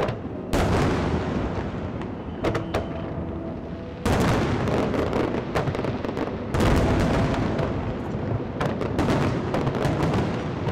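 Aerial fireworks bursting: a heavy boom about half a second in, another about four seconds in and a third about six and a half seconds in, with dense crackling and popping between.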